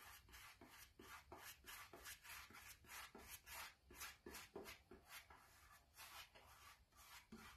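Faint soft strokes of a small paintbrush dabbing watered-down wood filler onto a thin 3D-printed plastic helmet, about three strokes a second and fewer near the end.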